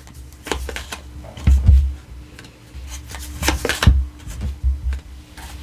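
Tarot cards being handled on a table: soft rustles and light taps, with a couple of dull knocks, over a faint steady hum.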